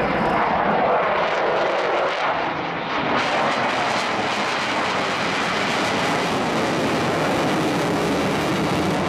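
Sukhoi Su-22M4 jet flying past close, its single Lyulka AL-21F-3 turbojet giving a loud, steady jet noise that is strongest in the first two seconds.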